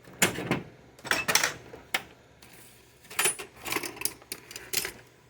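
Irregular clattering and clinking of small hard objects and hand tools being moved about, a dozen or so sharp knocks, several in quick pairs, as someone rummages through tools for a pair of scissors.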